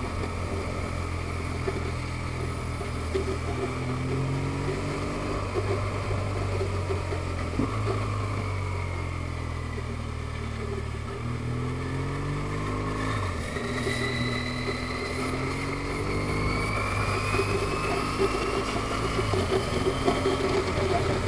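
Motorcycle engine running under way, with wind and road noise; its pitch dips and recovers around the middle, then rises steadily through the second half as it speeds up.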